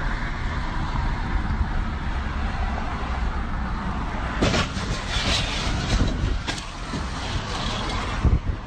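Steady road noise from a moving car, with a few sharp knocks or clatters in the middle and again near the end.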